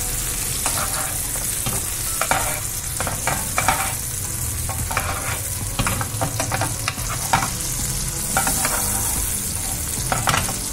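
Ribeye steak sizzling in hot butter in a nonstick frying pan, with a metal spoon scraping and knocking against the pan again and again as the butter is spooned over the meat to baste it.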